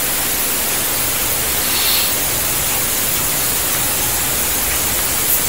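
A steady, even hiss with no speech. A faint brief tick comes near the end.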